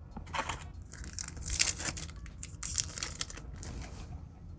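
A foil trading-card booster pack being torn open, its wrapper crinkling in several short rustles.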